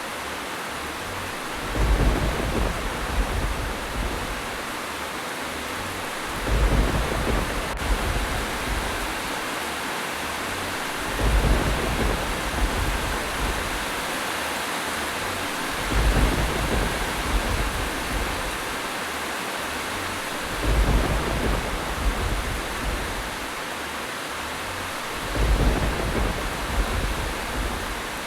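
Steady rain falling, with a low rumble that swells about every five seconds, six times in all, so regular that it sounds like a short loop.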